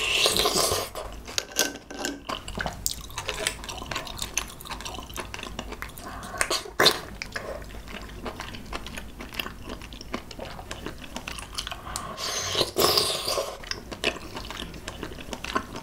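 Close-miked wet eating sounds of a person eating clams from clam noodle soup: a louder wet sucking sound at the start as a clam is taken from its shell, then steady chewing with many small wet mouth clicks, and another longer, louder wet slurp about 13 seconds in.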